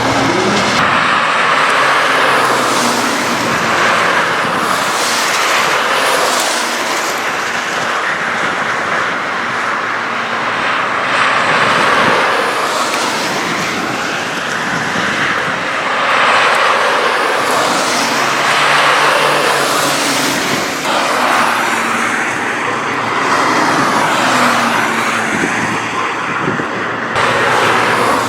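Citroën C1 race cars running on a wet track: engine notes rising and falling over and over through a constant hiss of tyre spray.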